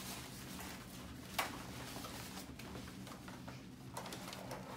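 Rustling and crinkling of a blue sterile wrap being pulled open around a plastic chest drain unit, with one sharp crackle about a second and a half in.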